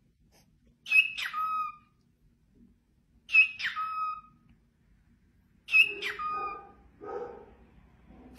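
Cockatiel calling three times, about two and a half seconds apart, each a short call that drops in pitch to a lower held note. Softer, lower sounds follow the third call.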